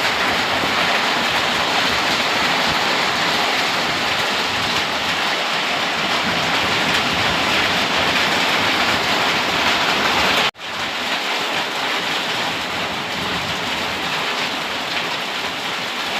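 Heavy rain during a storm falling hard on surfaces: a dense, steady hiss. It breaks off briefly about ten seconds in, then continues a little quieter.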